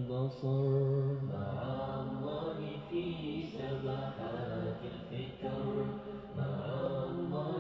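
Arabic devotional nasheed: a man's voice singing long, drawn-out melodic phrases in a chant-like style, with no clear words.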